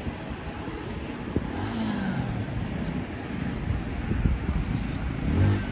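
City street traffic: car engines running and passing, one dropping in pitch about two seconds in, with another engine note coming up near the end.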